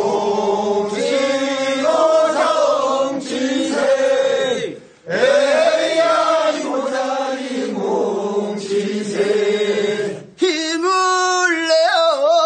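A group of men sings a Korean rice-seedling-pulling work song (모찌는 소리) in unison, in long, drawn-out chanted phrases with short breaths between them. A single voice takes up the next line about ten seconds in.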